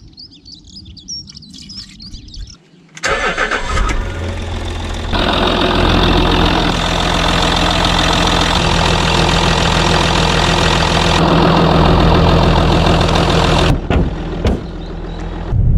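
Jaguar S-Type's 2.7-litre AJD V6 diesel engine being cranked and starting about three seconds in, then idling steadily, on its first run with the new thermostat fitted.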